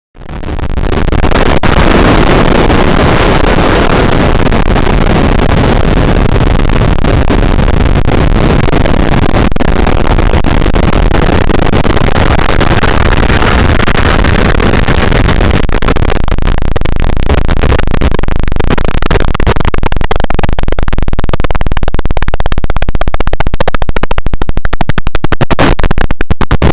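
Very loud, heavily distorted electronic noise filling every pitch, starting abruptly. In the second half a rapid fluttering pulse sets in and speeds up toward the end.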